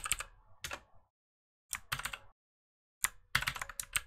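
Computer keyboard being typed on in three quick bursts of keystrokes, with short pauses between them.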